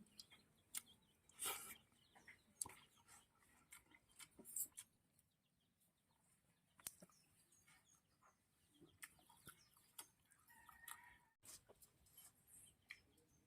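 Near silence, with faint, scattered small clicks and a few soft bird chirps.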